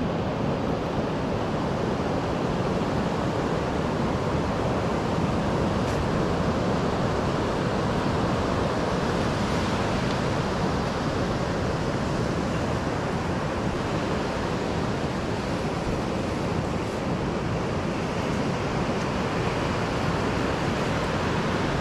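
Steady rush of ocean surf and wind, an even wash of noise with no distinct breaks.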